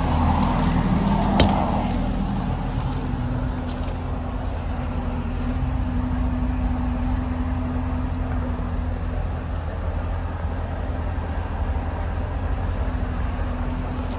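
Kawasaki Ridge side-by-side's 999cc inline four-cylinder engine idling steadily, with a single sharp click about a second and a half in.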